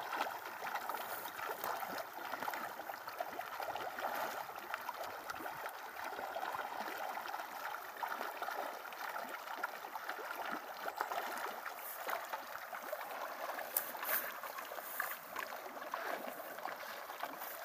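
Pond water splashing and gurgling steadily.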